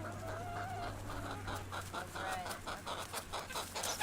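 Several chickens clucking in quick, short notes as they are fed bread, with one drawn-out wavering call in the first second.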